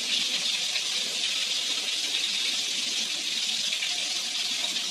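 Mung bean soup boiling hard in a stainless steel pot, giving a steady bubbling hiss.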